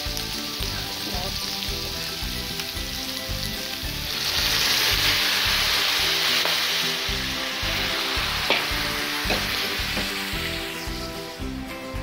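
Meat, carrots and aromatics sizzling in a hot aluminium wok. About four seconds in the hiss swells much louder as the meat broth is poured in, and it eases back near the end.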